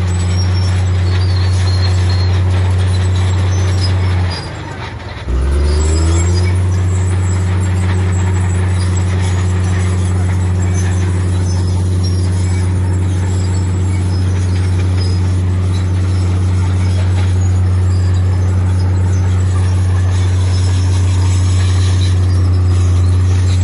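Heavy diesel engine of earthmoving machinery running at steady revs under load, a low even drone. About four seconds in the revs drop for about a second, then climb back to the same steady note.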